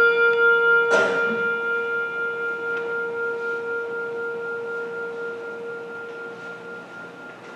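A handbell struck twice, the strokes about two seconds apart, the second about a second in; its clear ringing tone slowly dies away over about six seconds. It is tolled for each departed church member as the name is read.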